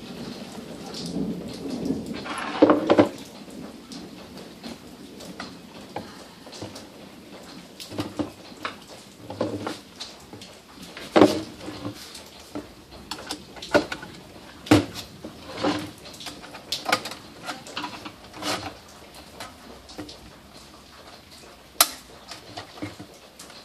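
Scattered clicks, clinks and knocks of metal parts handled on a workbench: a car radio head unit and its sheet-metal mounting sleeve being fitted together. The loudest knocks come about two and a half seconds in.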